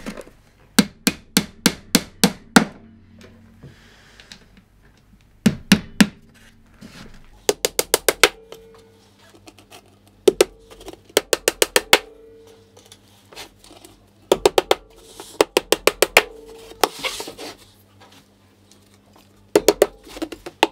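A steel claw hammer driving nails through a 12 mm MDF panel into the edges of a box, in several bursts of quick, sharp strikes with short pauses between.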